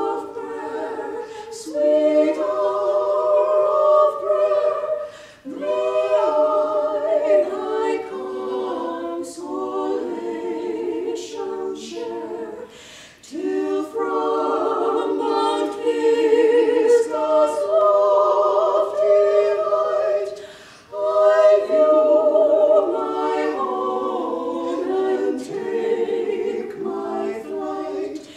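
Four women's voices singing unaccompanied in close harmony, with short breaks between phrases about every seven seconds.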